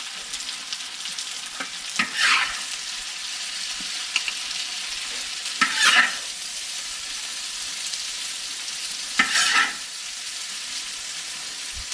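Shredded dried tofu sizzling steadily as it stir-fries in a wok, nearly done. A spatula scrapes and tosses it three times, a few seconds apart.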